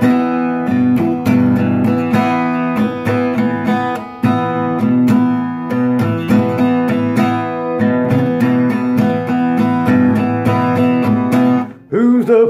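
Acoustic guitar strummed in a steady rhythm, chords ringing as the introduction to a song. The strumming breaks off briefly near the end, as a singing voice starts to come in.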